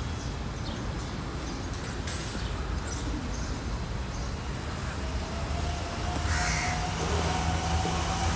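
Crows cawing a few times over a steady low rumble of outdoor background noise; a steady hum joins about five seconds in.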